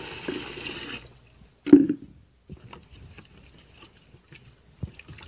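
Water pouring from a jug into a plastic container of hydrogel polymer granules, a steady splashing hiss that stops about a second in. A short thump follows, then faint wet squishing and clicking as a hand works through the swelling gel.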